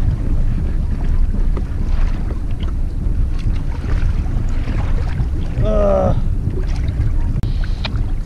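Steady wind rumble on the microphone with water washing against a plastic fishing kayak's hull, while a fish is being reeled in. A short voiced exclamation comes about six seconds in.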